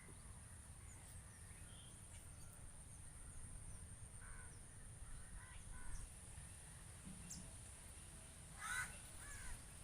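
Faint bird calls outdoors: a few short calls about four and six seconds in, then a louder one near nine seconds, over a steady faint high-pitched hiss.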